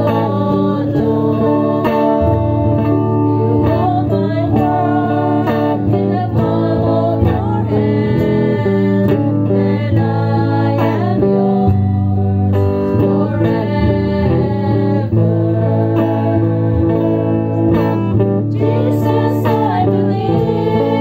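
A small group of women singing a worship song to strummed electric and acoustic guitars.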